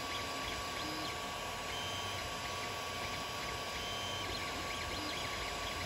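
Creality Ender 3 3D printer printing: a steady whir of its cooling fans, with short stepper-motor whines that change pitch as the print head and bed move.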